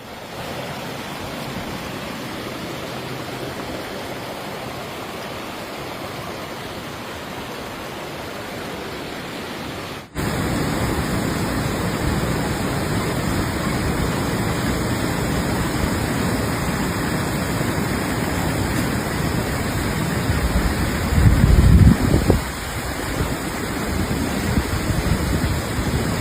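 Steady rushing noise of a monsoon storm in two clips. The second, starting abruptly about ten seconds in, is louder, with a deep rumbling swell a few seconds before the end.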